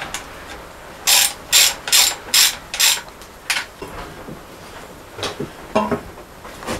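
Ratchet wrench turning down the nuts on an engine crankcase cover: five quick ratcheting strokes, about two a second, then one more, followed by a few lighter clicks and knocks.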